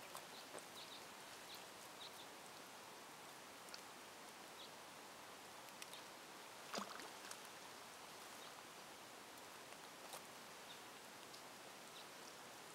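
Near silence: faint steady outdoor hiss by a still lake, with a few soft scattered clicks and ticks, the clearest about seven seconds in.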